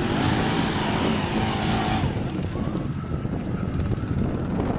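Quad (ATV) engine running under throttle, with a broad rush of noise over the first two seconds.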